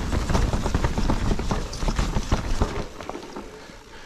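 Electric mountain bike clattering over roots: a dense run of rapid knocks and rattles with a low rumble, easing off about three seconds in.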